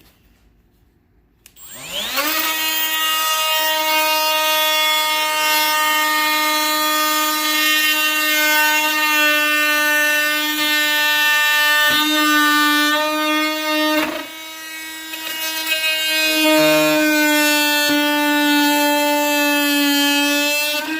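Kobalt 24-volt brushless oscillating multi-tool starting about two seconds in, spinning up quickly to a steady high-pitched buzz as its blade cuts through a 1x4 board. Two sharp knocks come near the middle, and the buzz dips in loudness briefly later on before picking up again.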